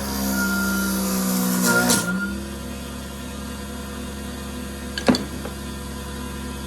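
Wood lathe running with a steady hum while a turning tool cuts a glued-up wooden duck call blank; the cutting stops about two seconds in, the lathe keeps running, and a single sharp knock sounds about five seconds in.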